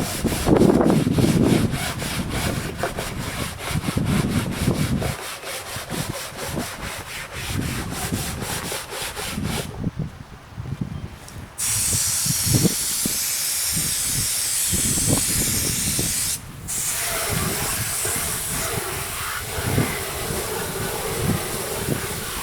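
Brush scrubbing rubber in quick, even back-and-forth strokes while it is cleaned with degreaser. After a short pause, a steady spray hisses, breaks off briefly, then hisses again.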